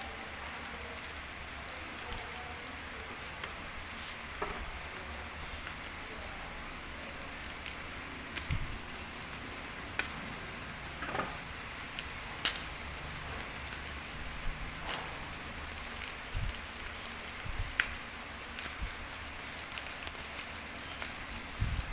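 Packaging being handled and unwrapped, with scattered crinkles and clicks over a steady hiss.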